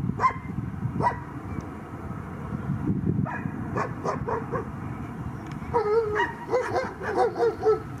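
A dog barking and yelping in short, high calls, a few at first and then a quick run of them over the last couple of seconds. A steady low jet rumble from a twin-engine airliner climbing away runs underneath.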